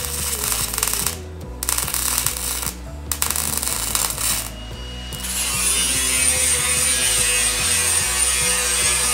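MIG welder laying short crackling stitch welds on sheet steel, in three bursts with brief gaps. About five seconds in, a cordless angle grinder takes over and grinds the welds with a steady high whine.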